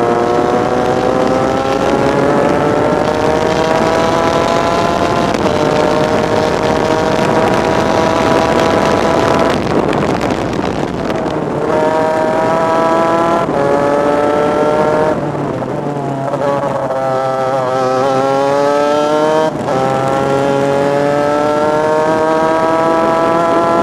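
Superkart's two-stroke engine at racing speed, heard from an onboard camera with wind rush over the microphone. It revs up in long climbing pulls with sudden pitch drops at the gear changes, cuts out briefly about ten seconds in, and winds down in a wavering fall for a few seconds past the middle under braking before pulling up again.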